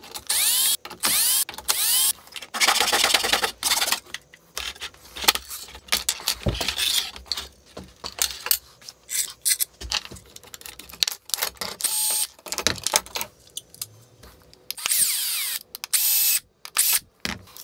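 Cordless drill-driver turning machine screws in several short runs, its motor whine rising and falling as the trigger is squeezed and eased. Between the runs come short clinks and knocks of screws and metal parts being handled.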